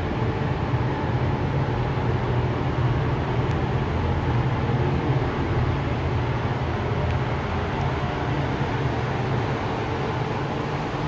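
Paint spray booth's ventilation and extraction fans running: a steady low hum with the rush of moving air.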